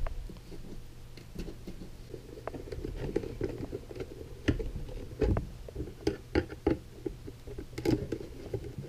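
Small machine screws being fastened with a hand screwdriver to mount brackets on a plastic sensor box: irregular small clicks, taps and knocks of metal hardware on the hollow plastic box, with the loudest knocks about halfway through.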